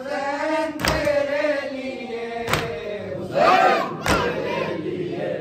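Group of men chanting an Urdu noha (Shia mourning lament) in unison, with rhythmic chest-beating (matam): three sharp hand slaps on the chest about every one and a half seconds, keeping the beat of the chant.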